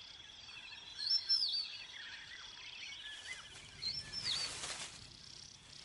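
Wild bird calls: short arched chirps, a few about a second in and more about four seconds in, over a steady high insect trill that fades out about halfway.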